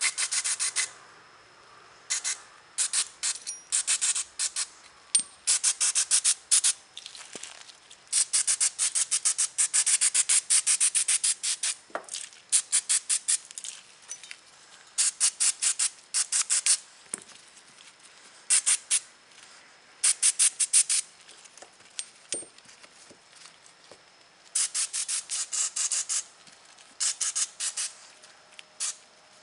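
Gloved hands rubbing Break-Free oil over steel revolver parts: bursts of quick scratchy rubbing strokes, each a second or two long, with short pauses between.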